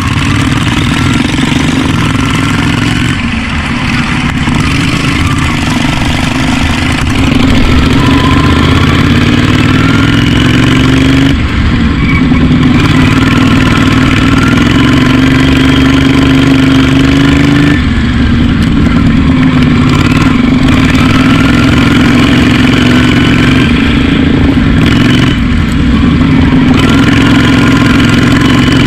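Racing lawn mower engine running hard at high revs, heard close up from the driver's seat. Several times the pitch drops briefly and then climbs back up as the throttle eases and opens again.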